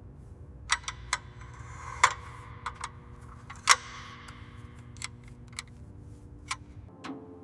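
About a dozen sharp clicks and taps at irregular intervals, some louder than others, over a low steady hum.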